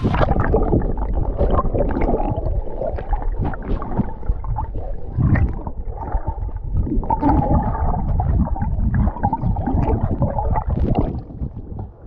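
Muffled underwater sound of shallow sea water: irregular gurgling and sloshing with low rumbling, as heard by a phone microphone dipped below the surface.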